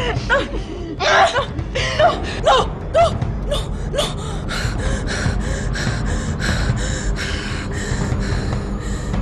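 A woman choking and gasping while being strangled: short strained cries in the first few seconds, then a quick run of rasping gasps for breath.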